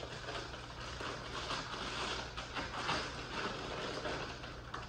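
Plastic fish-shipping bags rustling and crinkling as they are handled and opened over a bucket, with irregular crackles throughout, over a low steady hum.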